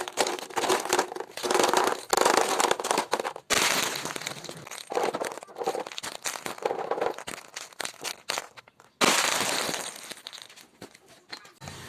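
Plastic crinkling and clicking as small toys are handled: a run of quick rustles and clicks, with sudden louder bursts about three and a half and nine seconds in that fade away.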